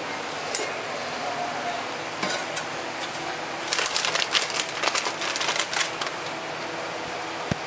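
Hot roast chicken's drippings sizzling in a metal roasting pan fresh from the oven: a steady hiss, with a burst of sharp, irregular pops and crackles about four to six seconds in.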